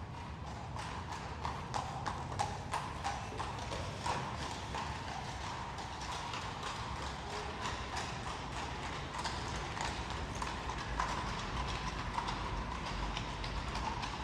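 Horse's hooves clip-clopping steadily on a hard road, drawing a carriage whose wheels give a continuous low rumble underneath.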